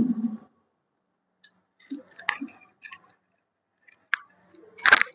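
Faint clicks and rustling of clothing against a clip-on microphone as a man rises to his feet holding a staff. A sharp click comes about four seconds in and a louder brief rustle near the end. It opens on the tail of a throat-clearing.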